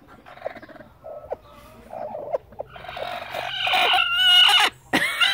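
Broody hens calling from their nesting boxes: low, broken clucks and grumbles at first, then from about three seconds in a louder, drawn-out squawking call that breaks off briefly near the end.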